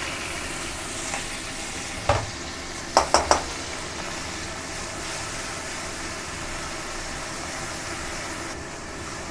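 Onion and garlic paste sizzling as it fries in hot olive oil and ghee in a steel wok, stirred with a metal spatula. A knock about two seconds in and three quick metal knocks about a second later are the loudest sounds.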